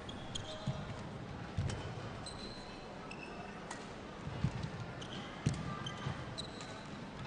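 Badminton rally: sharp racket strikes on the shuttlecock, with players' shoes squeaking briefly on the court and footfalls thudding. The loudest thuds come about four and a half and five and a half seconds in.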